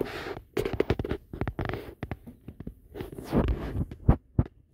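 A close run of irregular soft knocks, taps and rustles, ending with two sharper knocks about four seconds in.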